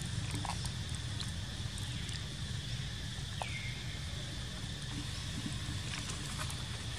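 Outdoor ambience: a steady low rumble under a steady high hum, with a few faint clicks and one short falling squeak about three and a half seconds in.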